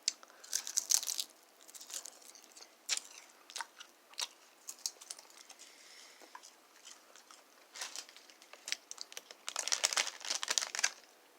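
A small feist dog chewing a thin, crisp seaweed snack: irregular bursts of crackly crunching, heaviest about a second in and again near the end.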